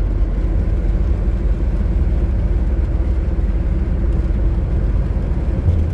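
Steady low rumble of a 2000 Nissan Frontier XE pickup truck's engine and road noise, with a steady hum over it.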